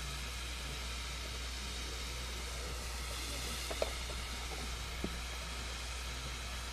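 Steady background hiss with a constant low hum, broken by two faint clicks about four and five seconds in.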